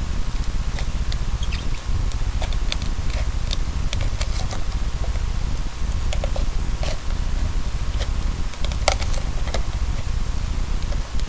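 Knife cutting and scraping through the hat's material: small irregular clicks and scratches, over a steady low hum.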